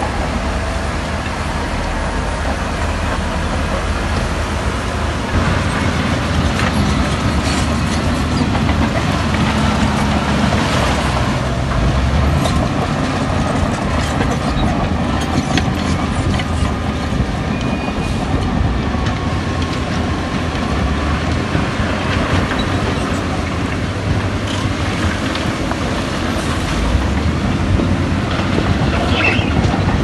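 Heavy diesel earthmoving machinery running steadily under load, with a deep engine rumble and scattered metallic clanks and rattles.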